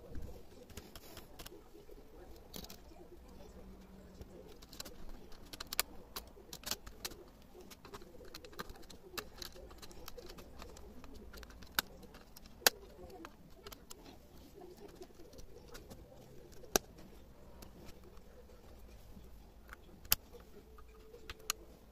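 Faint pigeon cooing, with scattered sharp clicks, several of them standing out from a quiet background.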